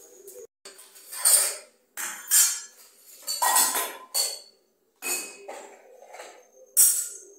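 Steel kitchen utensils clattering as they are set down one by one on a stone counter: about half a dozen sharp clanks and clinks.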